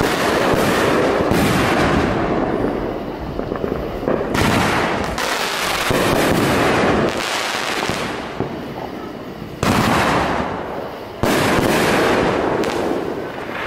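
Aerial fireworks bursting overhead: about ten loud bangs, some coming in quick pairs, each fading away over a second or so.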